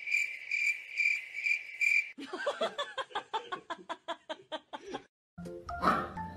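Rhythmic high-pitched, cricket-like chirping, about two chirps a second, for roughly two seconds. It gives way to a quicker run of short chirps and clicks that stops abruptly about five seconds in.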